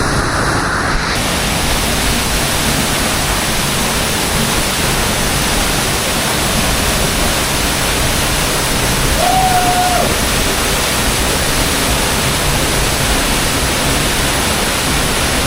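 Waterfall, a loud, steady rush of falling water that fills all pitches evenly, with a brief faint tone a little over nine seconds in.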